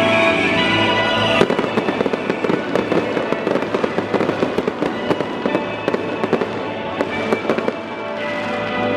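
Victory fireworks going off in a dense, rapid crackle of pops, over stadium music. The music drops back about a second and a half in and comes up again near the end.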